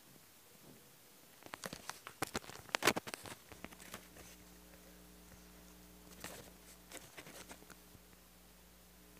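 Handling noise of a phone being moved about and covered: scattered rubbing and clicking knocks in two clusters, about a second and a half in and again around six seconds. A faint steady hum sets in near four seconds.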